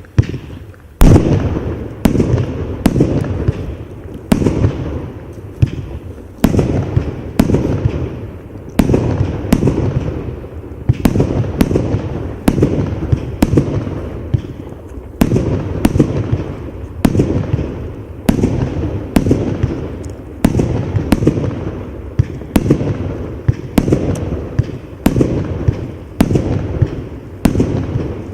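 150-shot compound firework cake firing its shots in steady succession, roughly one sharp bang a second, each fading off before the next.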